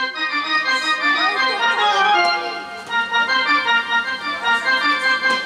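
Organ-toned keyboard music: a melody of held notes over a steady low drone.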